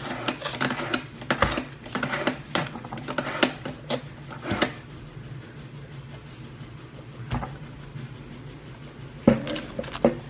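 Glass kitchenware and other newly bought items clicking and knocking as they are handled and set down on a table, over a steady low hum. The knocks come thick in the first few seconds, then sparser, with one sharp knock near the end.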